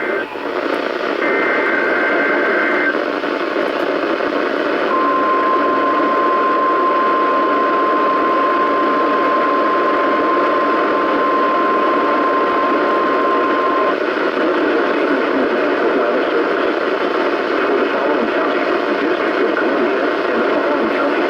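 A weather radio receiver plays an EAS alert start. About a second in comes a short warbling two-tone data burst of the SAME header. A few seconds later the 1050 Hz warning alarm tone holds one steady pitch for about nine seconds. Constant radio static runs underneath throughout, with no speech. Together these signals herald a Winter Storm Warning.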